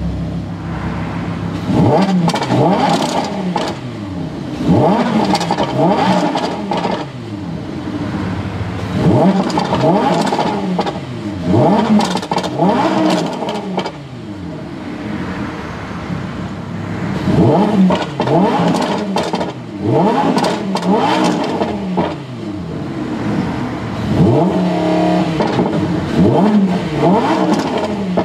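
2015 Lamborghini Huracán LP610-4's V10 engine revved again and again in Strada drive mode, its pitch rising and falling in repeated throttle blips.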